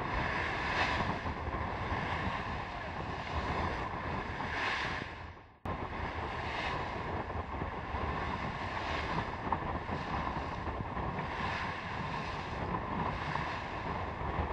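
Wind buffeting the microphone over the rush of water along a sailboat's bow under way, swelling with bursts of spray every couple of seconds. The sound fades down and cuts back in about five and a half seconds in.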